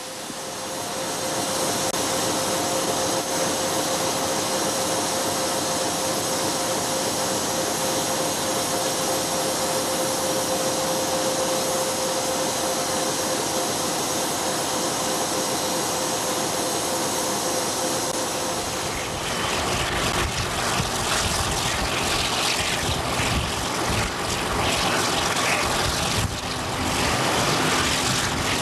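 A passenger train heard from a carriage window: a steady hissing roar with a held whine, which changes about 19 seconds in to the rumble and clatter of the train running along the track, with wind on the microphone.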